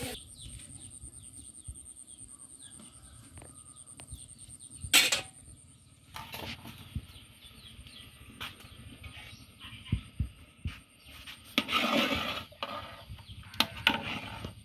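Chickens clucking faintly over a steady high-pitched whine. There is a sharp knock about five seconds in, and a louder noisy clatter with a few knocks in the last few seconds.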